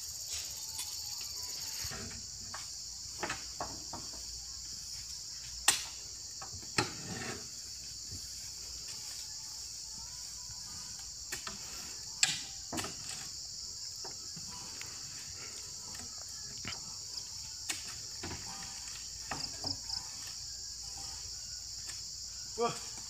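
Steady high-pitched drone of insects in the plantation, with a few sharp knocks, the loudest about six and twelve seconds in, as oil palm fruit bunches are heaved up onto a truck's load with a pole.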